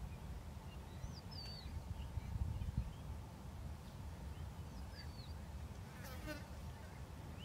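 Grassland ambience: a steady low rumble under scattered short bird chirps, with a brief insect buzz about six seconds in.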